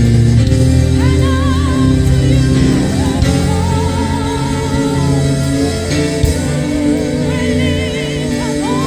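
Gospel worship song: a solo voice singing long, wavering held notes over sustained band chords.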